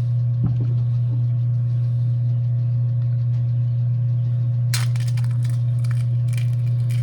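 A steady low hum throughout. Over it come sharp clicks and snaps: one about half a second in, then a quick run of them between about five and seven seconds in, as pruning shears snip through a quail eggshell.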